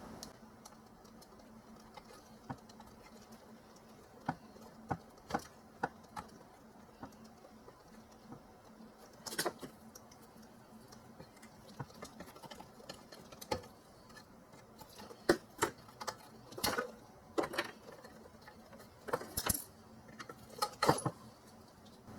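Scattered clicks, taps and scrapes of hand work cutting a hardened old rubber PCV hose off its fitting with a razor blade and handling the parts, with a faint steady hum underneath.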